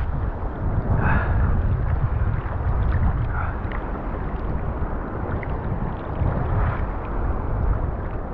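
Choppy surf washing and breaking around a wader, with a steady low rumble of wind on the microphone.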